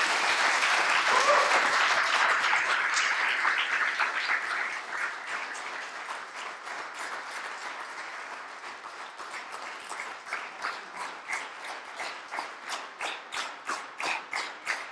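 Audience applauding, loudest at first, then thinning after about eight seconds into separate, evenly spaced claps.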